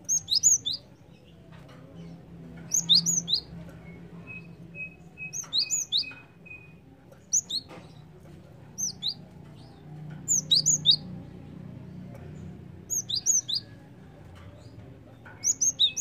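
Cinereous tit (gelatik batu) singing: short phrases of two to four sharp, high, down-slurred notes, repeated every second or two.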